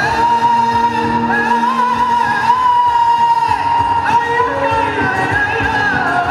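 A man singing a Bengali song into a microphone over a PA, holding long, slightly wavering notes over instrumental backing with a steady beat.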